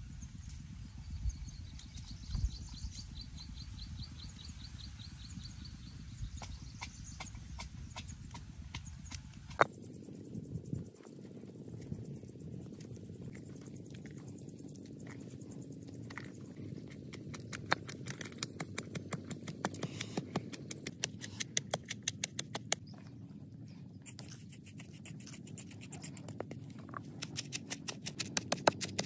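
Wooden pestle pounding red chillies and garlic in a wooden mortar: runs of sharp, hollow wooden knocks at about three a second, pausing and starting again.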